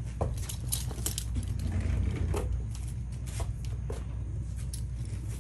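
Horse chewing a carrot close by: irregular crisp crunches, several in quick succession in the first half and a few more later, over a low rumble.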